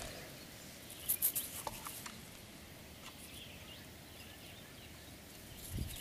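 A few light clicks of creek gravel stones knocking together as a hand picks through them, between about one and two seconds in, over a faint steady outdoor background.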